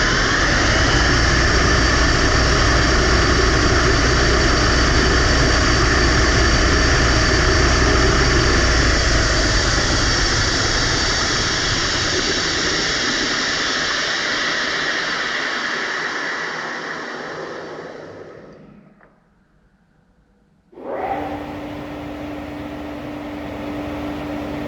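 Metal lathe spinning a GoPro in its chuck at high speed: a loud rushing whir of air and lathe drive, which fades away over several seconds to near silence about two-thirds of the way through. A steadier, quieter machine hum with a low steady tone then starts abruptly near the end.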